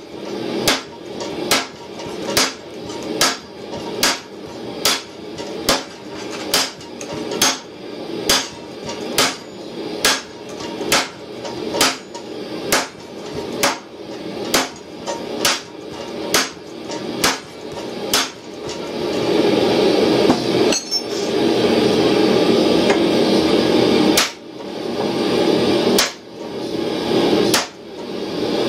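Hammer blows on a red-hot steel tow ball on an anvil, about one strike a second, each a sharp hit with a short ring. The blows pause for about six seconds after the first two-thirds, leaving a steady rushing noise, then three more strikes follow.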